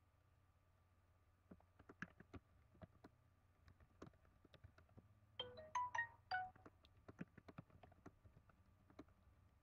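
A short electronic notification jingle of about five quick pitched notes, lasting about a second, near the middle. Faint irregular clicks come and go around it over near silence.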